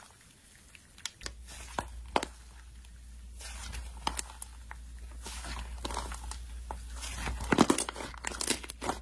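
Blue slime being stretched, folded and squeezed by hand, giving sticky crackling and clicky pops. The pops come faster and louder over the last two seconds.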